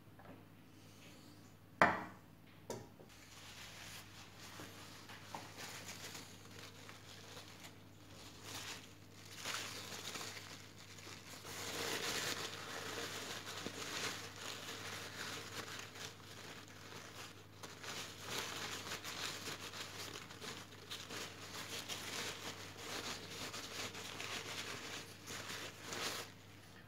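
Paper towel crinkling and rubbing as filled lip balm tubes are wiped clean, in uneven rustling spells. A single sharp knock about two seconds in is the loudest sound.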